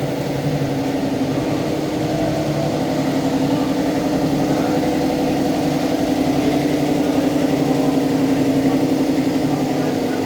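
An engine running steadily at idle with an even pulsing beat, swelling a little in level past the middle.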